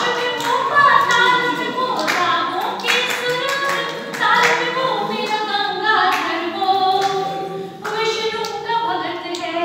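A voice singing verse in long, held notes, with hand clapping through it.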